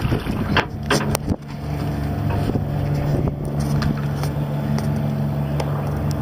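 Boat engine running with a steady low hum. In the first second or so, wind buffets the microphone and there are a few sharp knocks.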